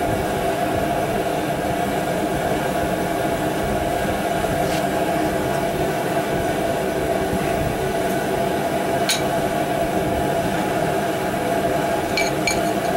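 A steady mechanical hum with several steady tones runs throughout. A light metallic click comes about five seconds in and again about nine seconds in, and a few quick clinks come near the end as a piston ring compressor is fitted over the piston.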